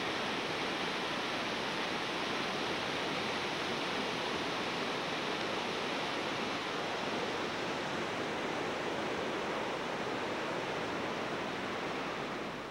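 Colorado River rushing steadily, an even noise of flowing water over riffles with no break.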